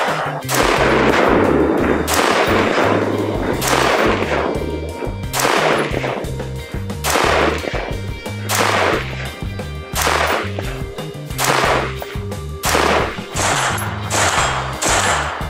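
Sionics Patrol Rifle III AR-15 in 5.56 firing a string of sharp single shots, about one every second or so and coming quicker near the end, over background music with a steady bass line.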